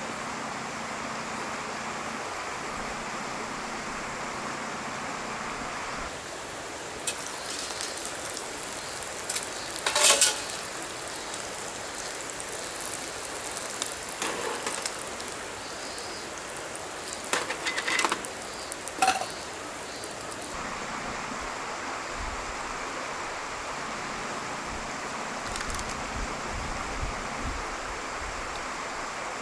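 Metal cookware at a small camp stove clinking sharply about a third of the way in and in a quick cluster a little past halfway, over a steady hiss.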